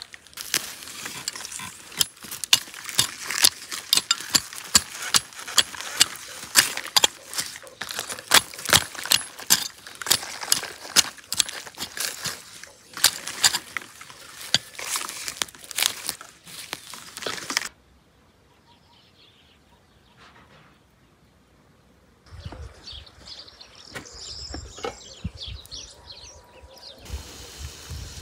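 Small metal hand hoe chopping into soil and weeds between onion plants: a quick run of sharp strikes, about two or three a second. It stops a little over halfway through, and fainter, unclear sounds follow after a brief lull.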